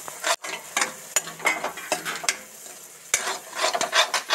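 A spatula scraping and knocking around a steel kadhai in quick irregular strokes as onion pieces and masala paste are stirred, with oil sizzling underneath.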